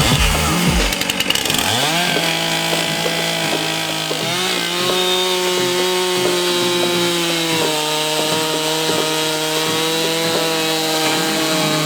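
Two-stroke chainsaw ripping lengthwise through a large log freehand. The engine revs up about two seconds in and again around four seconds, then runs steadily at high revs under cutting load.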